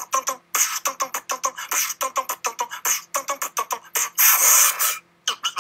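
A man beatboxing: a fast, irregular run of mouth-made drum hits, clicks and short vocal sounds, with a louder long hiss about four seconds in and a brief pause just after it.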